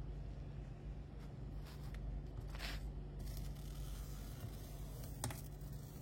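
Rubber foot strip being pried and peeled off the plastic underside of a laptop: a few short scraping, tearing sounds and one sharp click about five seconds in.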